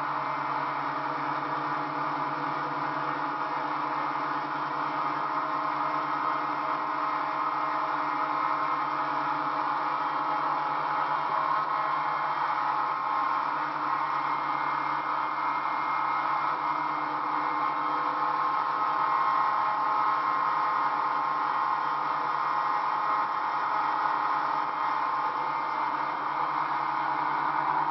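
Motorboat running steadily at towing speed, its engine drone mixed with the rush of water in the wake.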